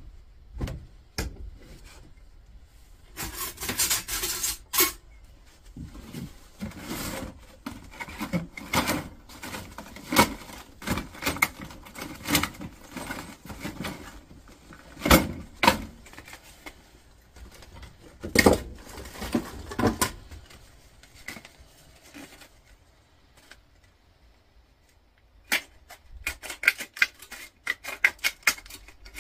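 Hand tools and metal parts knocking and clattering as they are picked up and moved about on a workbench, with rustling between the knocks. Near the end comes a quick run of light clicks.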